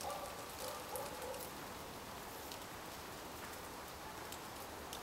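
Faint outdoor background hiss with a few scattered light ticks and some faint short pitched sounds in the first second or so.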